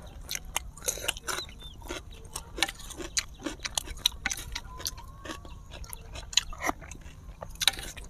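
Close-miked eating: a string of short, irregular mouth smacks and chewing sounds, with spoons scraping and clicking against a metal serving tray.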